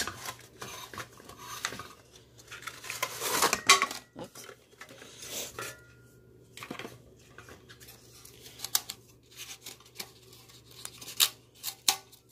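Stainless-steel camp stove parts and cookware being handled, with scattered metal clinks and knocks. A louder stretch of scraping and rustling of the packaging comes about three seconds in.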